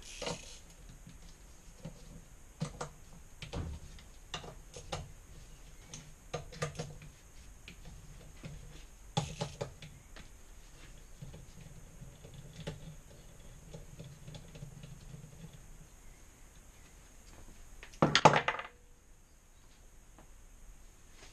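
Scattered metal clicks and knocks of hand tools working on a seized compressor clamped in a vise, with a loud clatter of metal about eighteen seconds in.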